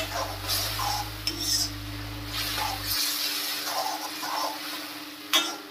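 A spoon stirring and scraping through a spiced tomato masala in a cooking pan, with repeated short scrapes and clinks against the pan.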